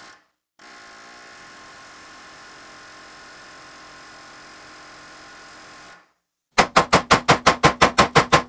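Faint steady shop hum, then after a cut about two seconds of loud, rapid metallic hammering, about seven blows a second: a pneumatic air hammer driving at a seized leaf-spring bolt.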